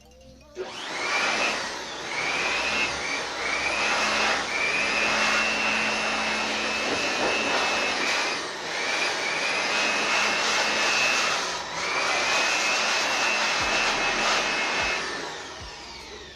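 A high-speed electric motor driving a rush of air, like a vacuum cleaner or blower, switched on about half a second in. It runs loudly with a wavering high whine and a few brief dips, then is switched off near the end and winds down with a falling whine.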